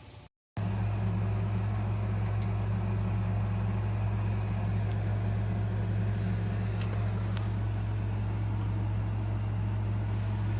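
A steady low hum with a few faint ticks, cutting in sharply after a brief silence about half a second in.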